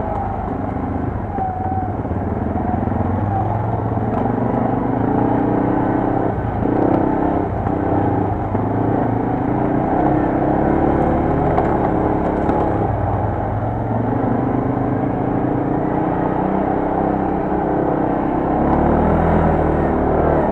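Quad bike engine running as it rides, its pitch rising and falling with the throttle, with a few knocks along the way.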